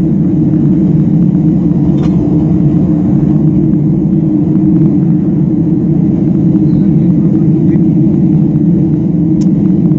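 Steady engine and propeller drone of a small propeller aircraft, heard inside the cabin as it rolls along the runway after landing.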